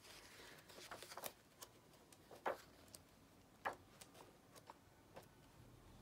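Faint rustling and light ticks of paper as the pages of a large hardback book are turned by hand, with two slightly sharper page flicks around the middle.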